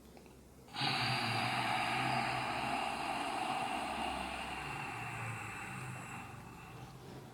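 Ujjayi (ocean breath) pranayama: one long, slow breath through the nose with the throat slightly narrowed, making a steady sea-like hiss. It starts suddenly about a second in and fades slowly over about six seconds.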